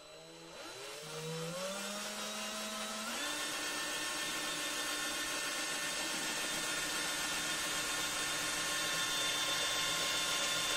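Cordless drill boring a hole through a thin plastic part of a water flosser, started slowly: its motor whine climbs in pitch in steps over the first three seconds, then runs steady at full speed.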